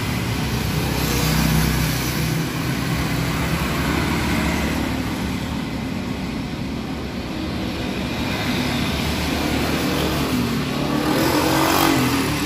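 Road traffic noise from a street right outside: vehicles going past continuously, with one engine louder and wavering in pitch near the end.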